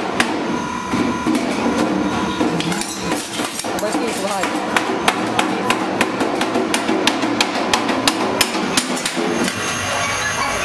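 Motor-driven rotary shear for stainless sheet running with a steady hum, while the stainless steel sheet is clamped and worked on it with frequent sharp, irregular metallic clicks and taps.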